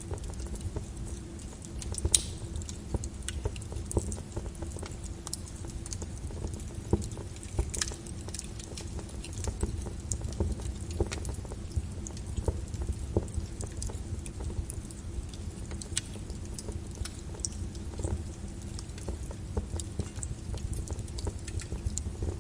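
Wood fire crackling in a fireplace: scattered sharp pops and snaps over a low, steady rumble of the burning, with the loudest pop about two seconds in.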